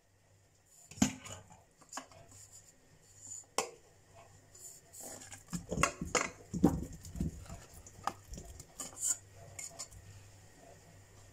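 Potato chunks tipped from a metal pot into a stainless steel bowl: a few sharp metal clinks in the first few seconds, then a quick run of soft thuds and knocks from about five to nine seconds in as the pieces land against the steel.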